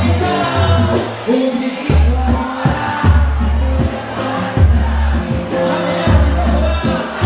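Music with singing over long, heavy bass notes.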